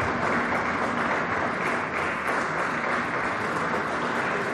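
A crowd applauding, with steady clapping throughout.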